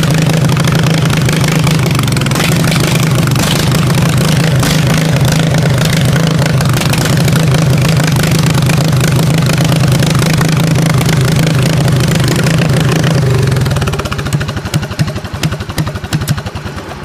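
Riding lawnmower engine running steadily under the test drive. About fourteen seconds in the engine note drops away and sputters down unevenly.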